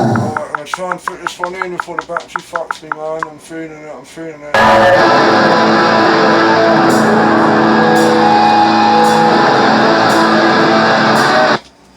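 Recorded rock music: a run of separately picked guitar notes, then the full band comes in loud and dense about four and a half seconds in, dropping out abruptly for a moment near the end.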